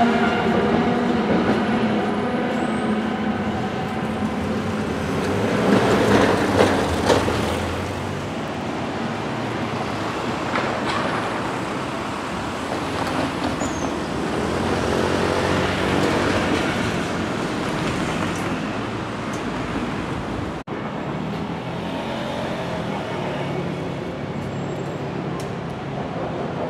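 Road traffic on a city street: cars and trucks driving past in a steady stream, swelling as a louder vehicle goes by about six seconds in.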